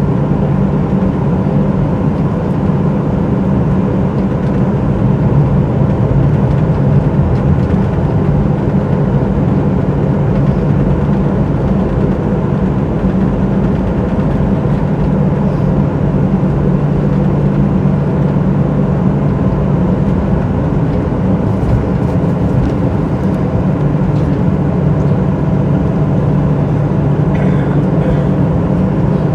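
Boeing 737-800's CFM56-7B engines running steadily, heard from inside the cabin as a loud, even drone with a strong low hum.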